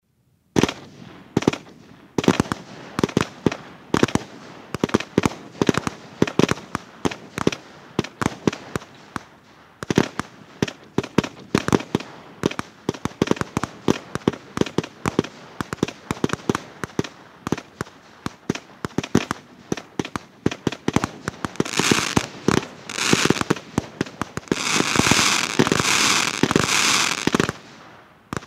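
Kronos 75-shot consumer firework battery (25 mm, category F2) firing in quick succession: a rapid string of shots and bursts. Near the end the final crackling-chrysanthemum shots break into dense crackling, which stops suddenly.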